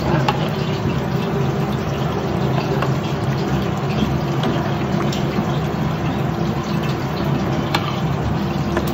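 Minced-beef mixture cooking in a pan on the stove: a steady bubbling, sizzling hiss with a few sharp clicks.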